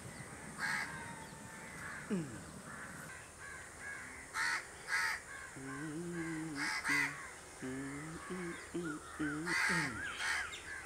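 Crows cawing, a handful of short harsh calls scattered through the stretch, over soft chirps of smaller birds. From about halfway a low pitched hum comes and goes in short stretches.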